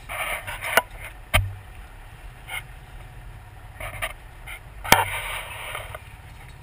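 Water sloshing and splashing around a shark held in a sling at the boat's side, with a few sharp knocks, the loudest about five seconds in.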